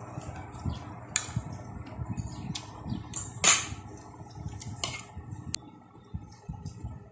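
Meal-table sounds: scattered short clicks and scrapes of tableware as someone eats by hand from a plate, over a low room rumble. The loudest is a longer scrape about three and a half seconds in.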